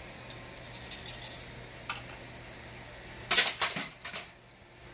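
Metal utensil clinking and tapping against glassware: a few light clicks, then a louder run of clinks about three seconds in.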